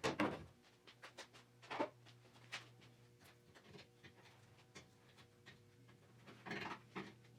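A few faint clicks and taps of hand tools on the hood's sheet metal as the cut corner is worked, over a low steady hum, with a brief soft rasping noise near the end.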